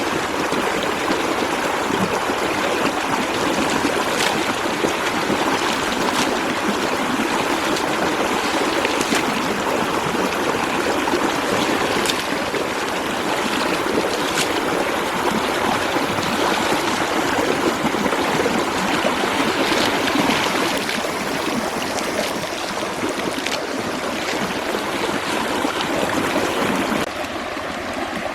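Water flowing steadily, like a small stream, with a few faint clicks over it; the sound drops a little and changes about a second before the end.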